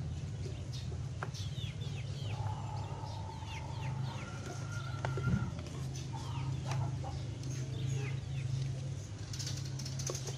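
Chickens clucking in the background, with many short falling chirps throughout, over a steady low hum. A single sharp knock about five seconds in.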